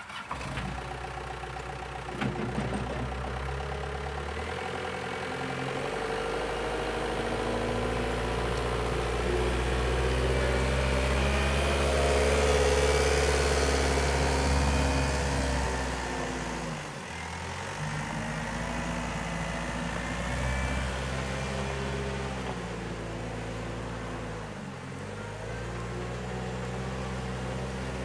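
Caterpillar 906H compact wheel loader's diesel engine running as the machine drives about and works its bucket, the revs rising and falling. The engine note dips briefly twice, about two-thirds of the way through and near the end.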